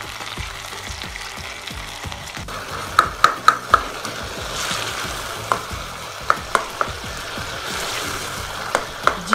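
Chopped tomatoes sizzling as they fry in oil in a stainless steel karahi, while a steel ladle stirs and mashes them. The ladle clinks against the pan: four quick clinks about three seconds in, a few more in the middle, and two near the end.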